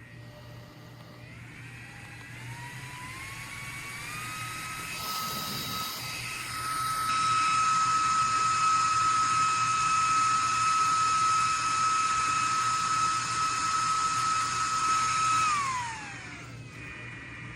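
Small electric motor of a CAZOKASI portable waist-clip fan whirring. It steps up in pitch through several speed settings in the first few seconds, holds a steady high whine, then winds down with a falling pitch about two seconds before the end, as the fan is switched off.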